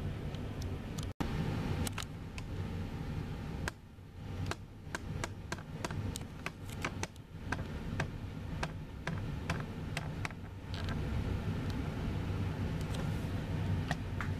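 Low, steady rumble of distant jet airliners at the airport. It cuts out abruptly just over a second in, and a run of sharp clicks comes through the middle.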